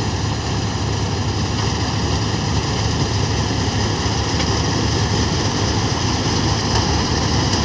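Combine harvester running steadily as it cuts standing crop, a constant engine drone with a low hum under it.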